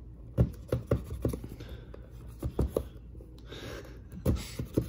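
A metal fork scraping and tapping against a small cardboard box as it slits the seal stickers. Irregular clicks throughout, with a short scratching rasp about three and a half seconds in.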